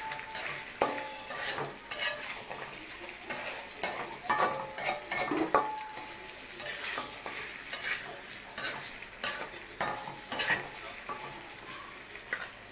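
A spatula scraping and knocking against a wok as meat is stirred, irregular strokes about one or two a second. Under it, a steady sizzle of the meat frying in oil.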